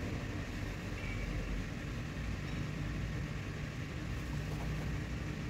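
Steady low mechanical hum of background machinery, with no distinct clicks or knocks standing out.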